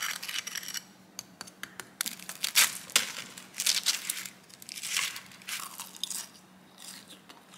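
Crisp, flaky crust of a fresh-baked laminated pastry crunching as a knife cuts through it and a fork pulls it apart. It comes as irregular spells of crackling, loudest about two and a half seconds in.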